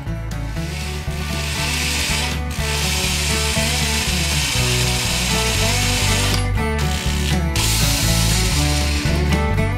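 Handheld power drill boring holes into a wooden beam connector, running in long stretches with a few brief stops, over background music.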